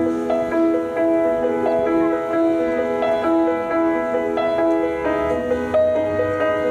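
Instrumental music accompanying a Cyr wheel act: a melody of held, evenly paced notes.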